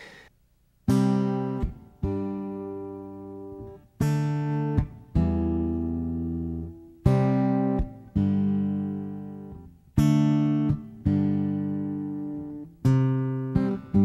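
Acoustic guitar strumming chords, starting about a second in and struck every one to two seconds, each chord left to ring and fade: the instrumental opening of a song.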